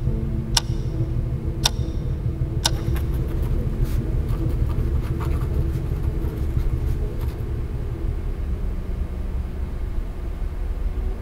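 Wall clock ticking about once a second over a steady low rumble; the ticks stop about three seconds in. Faint quick scratches of a pen writing on paper follow for a few seconds while the rumble goes on.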